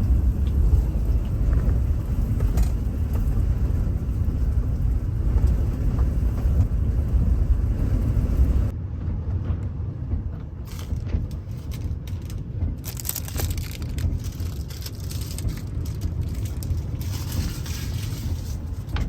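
A loud, deep rumble of wind battering the microphone. About halfway through it cuts to gusty wind, a hissing rush with many crackles and rattles from a sandstorm.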